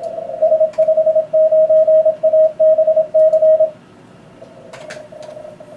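Morse code (CW) from an Elecraft K3 transceiver: a clear, loud, mid-pitched tone keyed in dits and dahs for nearly four seconds, then a fainter Morse signal over receiver hiss.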